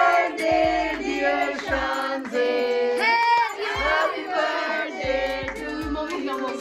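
A song with several singing voices over a light, steady beat.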